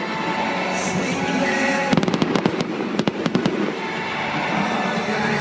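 Fireworks going off in a steady dense hiss, with quick runs of sharp crackling pops about two seconds in and again about three seconds in.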